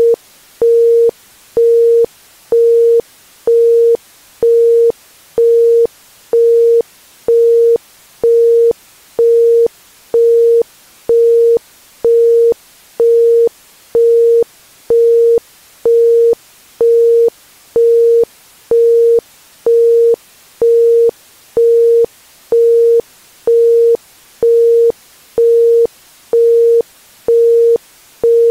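Isochronic tone: a pure 465 Hz tone pulsed on and off at about once a second (1.05 Hz), each beep starting and stopping sharply. A faint hiss lies underneath.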